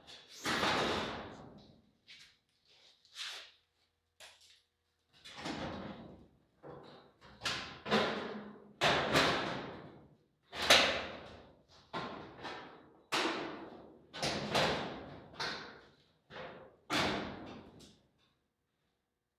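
Irregular knocks and thumps on hand-formed sheet-metal body panels as they are pushed and tapped into line, each with a short metallic ring, about a dozen in all, stopping shortly before the end.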